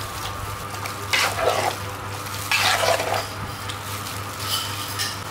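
Raw chicken pieces sliding wetly from a steel bowl into a pot of curry paste and being stirred in with a metal ladle: wet squelching and sloshing in two main bursts, about one and two and a half seconds in, with a fainter one near the end. A steady low hum runs underneath.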